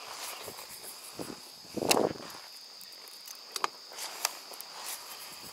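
Insects chirping in a steady high-pitched chorus from the wooded shore. About two seconds in comes a short, louder rustling thump, and a few sharp ticks follow later.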